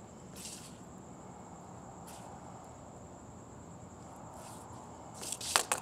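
Crickets trilling in a steady high-pitched drone. Near the end come a quick run of sharp scrapes and clacks from boots and a hoop on the concrete driveway.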